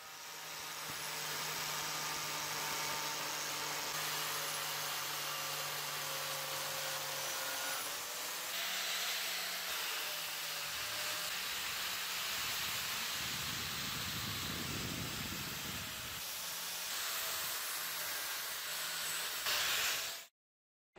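A 710 W NewBeat angle grinder with a red polishing wheel runs, buffing a metal lock plate with a steady motor whine and hiss. The sound changes a few times as the work shifts and stops abruptly about a second before the end.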